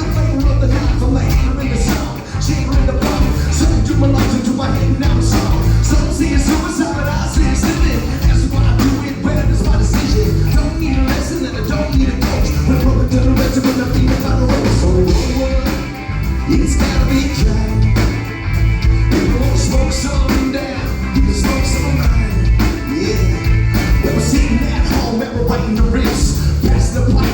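Rock band playing live with a singer, loud and steady, with heavy bass and drums.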